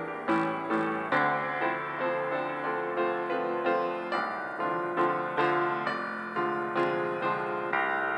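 Solo piano playing a slow, gentle piece, with notes and chords struck about twice a second and left to ring.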